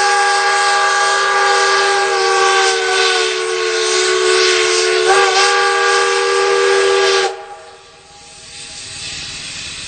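Multi-chime steam whistle blowing a steady chord of several tones. The pitch sags slightly partway through and jumps back about five seconds in. About seven seconds in the whistle cuts off abruptly, leaving a fainter hiss.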